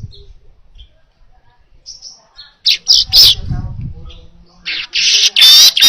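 Manyar (weaver bird) singing: a few short high chirps about three seconds in, then from about five seconds a loud, rapid run of chirps and trills.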